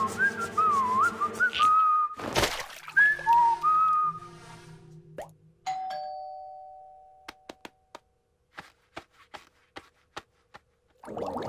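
Cartoon soundtrack: a character whistles a wavering tune over light music, with a short whoosh about two seconds in. Near the middle a two-tone doorbell chime rings, followed by a scattering of light taps, and music starts again at the very end.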